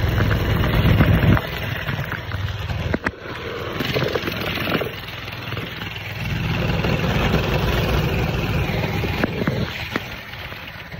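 Mini bike's small engine running as it is ridden, rising and falling in loudness: loud for the first second or so, easing off, then loud again from about six to nine and a half seconds in before dropping back.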